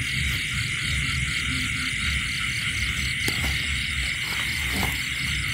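Night chorus of crickets and other insects: a steady, dense high-pitched shrilling with a rapid even pulsing, about five pulses a second, over a low rumble. A single click sounds about three seconds in.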